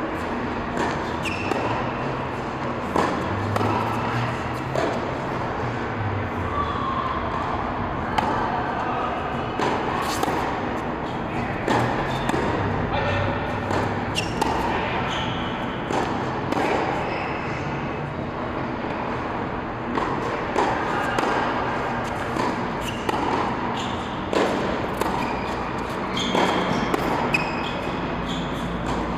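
Tennis rally on an indoor hard court: racket strings striking the ball and the ball bouncing on the court, a sharp thud every second or so throughout.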